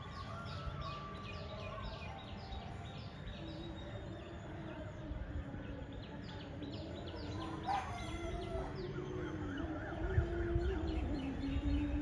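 Birds chirping: runs of short, high, falling notes repeated several times a second, pausing briefly about two-thirds of the way through, then starting again.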